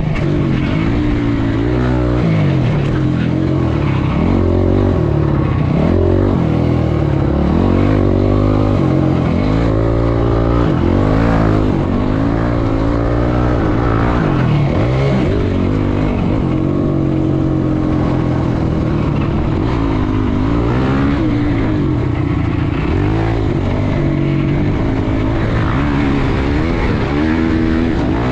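Honda CRF250X's single-cylinder four-stroke engine being ridden hard. The engine's pitch rises and falls over and over as the throttle is opened and closed.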